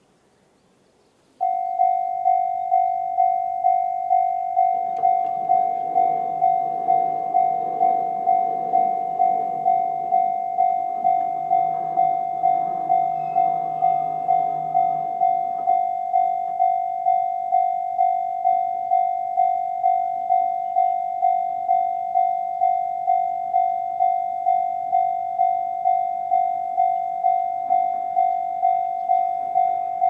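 Japanese level-crossing electronic warning bell in the JR East Tohoku-type tone, starting suddenly about a second and a half in and then ringing at about two strikes a second. From about five seconds in to about fifteen seconds, the Nippon Signal MWF-D electric barrier machines hum under the bell as they lower the gate arms.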